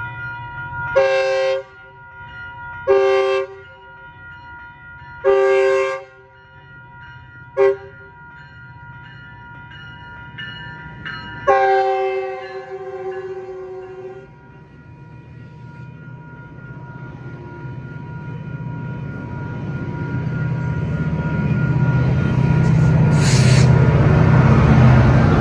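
Metrolink commuter train horn sounding a multi-tone chord in separate blasts: long, long, a short one, then a final long blast that fades, the standard grade-crossing signal. After it, the rumble of the diesel locomotive pushing at the rear grows steadily louder as it comes past, with a brief hiss near the end.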